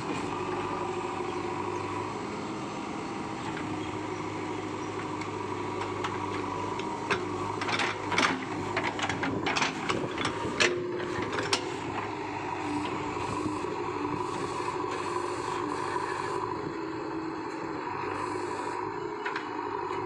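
JCB 3DX backhoe loader's diesel engine running steadily under load while it works its arm and stabilizers to climb out of deep mud. Around the middle comes a string of sharp knocks and clanks.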